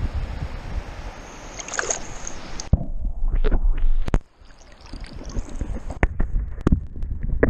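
River water sloshing and gurgling against a waterproof camera held at the waterline, going muffled as the camera dips under about three seconds in and cutting off suddenly a second later. Then a series of sharp knocks and handling noises as the camera is lifted and turned out of the water.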